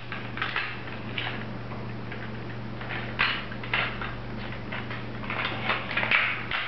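Irregular light plastic clicks and knocks as propellers are pulled off a toy quadcopter drone's motor shafts and the drone is handled, over a steady low hum.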